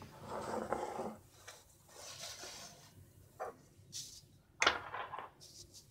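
Kitchen handling noise on a marble counter: a glass mixing bowl scraping as it is slid aside in the first second, then a few sharp clicks and knocks as a plastic bottle is picked up, the loudest knock about two-thirds of the way through.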